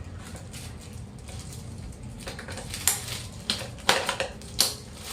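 Plastic parts of a steam mop clicking and knocking as they are fitted together: a handful of sharp clicks in the second half, over a low steady hum.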